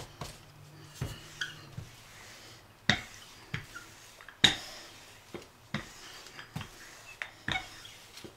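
Wooden rolling pin knocking and clicking on a wooden board as it rolls out stiff, cold pastry dough: about a dozen irregular sharp knocks, the loudest about three and four and a half seconds in.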